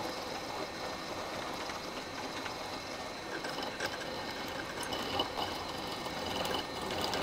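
Milling machine running an end mill through the side of an Acme-threaded metal bar, cutting away the thread: a steady machining noise with a thin, steady high tone from the spindle and a light rattle of the cut.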